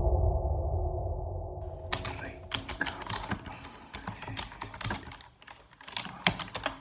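A deep, low hit fading out with a faint held hum. About two seconds in, someone starts typing on a computer keyboard: quick, irregular key clicks that carry on to the end.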